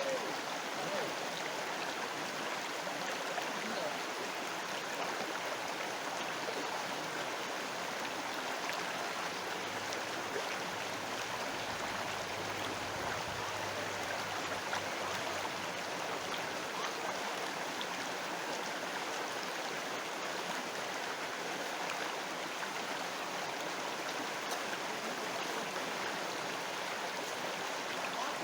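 River water flowing, a steady even rushing with no let-up.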